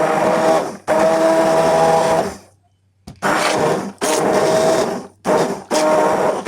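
Electric kitchen blender run in repeated short pulses: the motor starts and stops about six times, with one longer pause near the middle.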